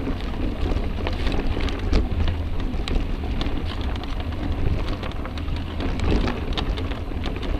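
Wind buffeting the microphone in a steady low rumble, over the crackle and clatter of mountain bike tyres rolling along a dirt trail with many small sharp clicks.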